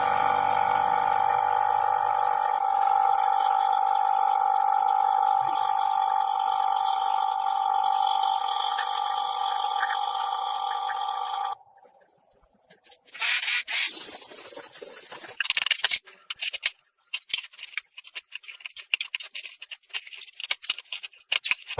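A power tool running with a steady whine that cuts off suddenly about eleven seconds in. After a short pause comes a loud burst of noise, then scattered scraping and clicking of metal parts being worked.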